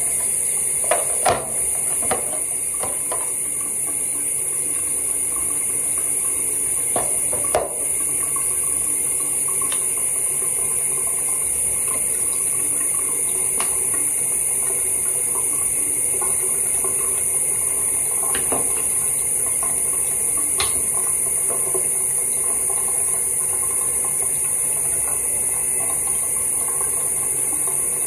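Steady hiss of water running from a bathroom sink tap, with a few light clicks and knocks of small items being handled in the first several seconds.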